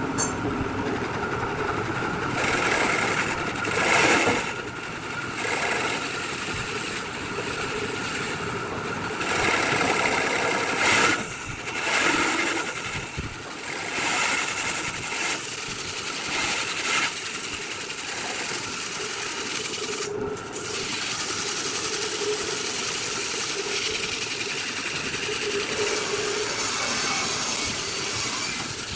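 Woodworking machine running steadily while wood is cut or abraded against it, with a few brief louder surges as the tool bites harder.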